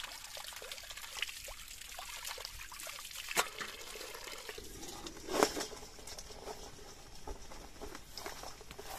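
Spring water pouring steadily from a bamboo spout and splashing onto stones as crabs are rinsed under it. Two sharp knocks cut through it, about three and a half and five and a half seconds in, the second the louder.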